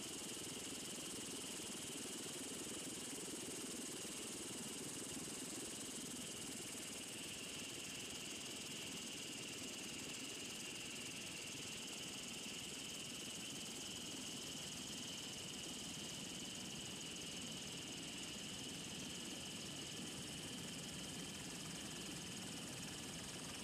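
Steady drone of an aircraft in flight, heard from inside its cabin: engine and airflow noise with a high whine on top, unchanging throughout.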